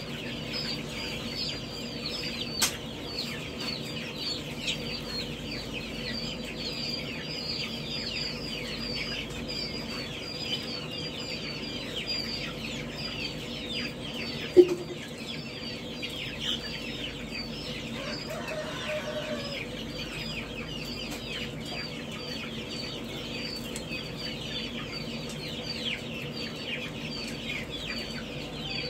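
A dense, continuous chorus of baby birds peeping in brooder cabinets, many short high falling peeps overlapping, over a steady low hum. About halfway through there is a single sharp knock, the loudest sound.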